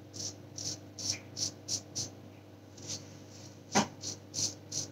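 Feather Artist kamisori-style razor with a guarded blade scraping through beard stubble: about a dozen short, separate rasping strokes, a couple to a few per second, with one louder stroke about four seconds in.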